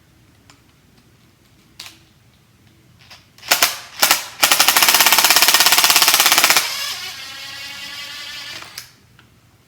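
Compressed air blown over a small sander part to clean it: two short blasts, then a long loud rapidly fluttering hiss that drops to a weaker hiss with a faint whistle about two seconds later, before cutting off.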